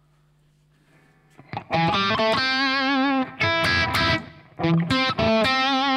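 Harley Benton SC-Custom 2 electric guitar with Bare Knuckle VHII pickups played through a VHT Pittbull 100 CL tube amp head set for a low-gain, lightly overdriven tone. After about a second and a half of faint amp hum, sustained chords and notes ring out with wavering vibrato, in short phrases with brief breaks between them.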